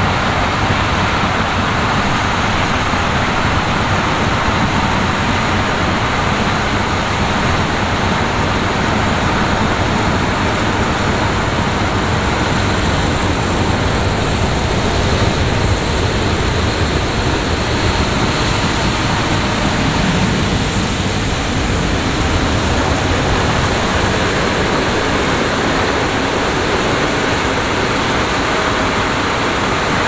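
John Deere X9 1000 combine harvesting corn while unloading on the go into a grain cart pulled alongside by a Fendt 1050 tractor: a steady, even rush of the machines running, with no single sound standing out.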